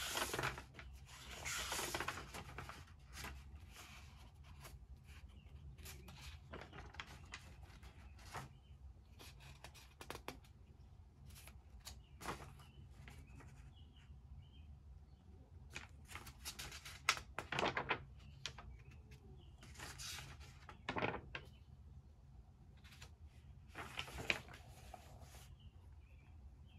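Quiet desk sounds of paper being handled: pages and sheets rustling in short bursts several times, with small taps and scratches in between.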